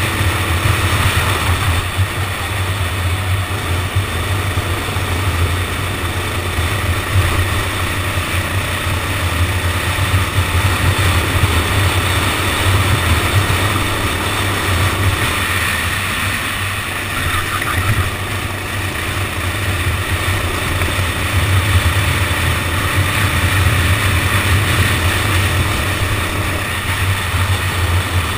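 Go-kart engine running steadily as the kart laps the circuit, heard onboard as a loud, even low drone under a constant rush of noise.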